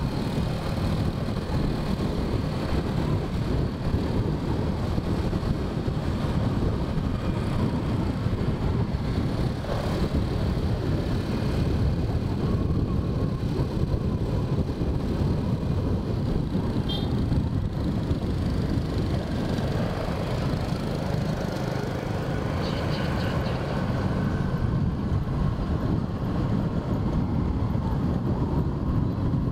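Steady low rumble of riding a motorbike through city streets: engine, tyre noise and wind on the microphone.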